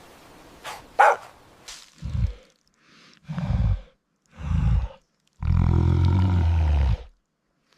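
An animal giving a series of low, harsh calls: three short ones and then a longer one lasting about a second and a half, with a few sharp clicks before them.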